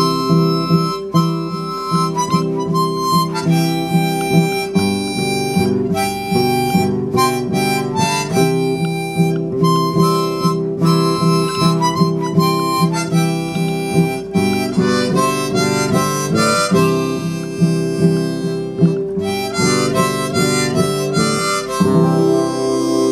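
Harmonica playing a solo over strummed acoustic guitar in a country-western tune.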